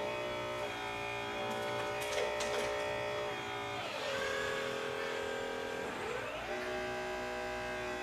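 Hydraulic pump of an RC Liebherr 944 Litronic excavator model whining in a steady tone of several pitches. Every two to three seconds the pitch dips and climbs to a new level as the arm and bucket work. A few light clicks come around two seconds in.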